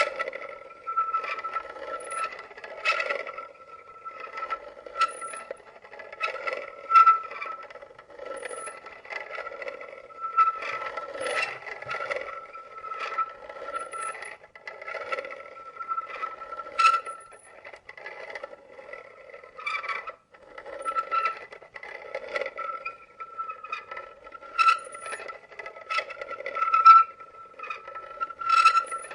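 Coffee mill grinding beans: a continuous rasping scrape that swells in a regular rhythm about every second or two, with sharp crunching clicks.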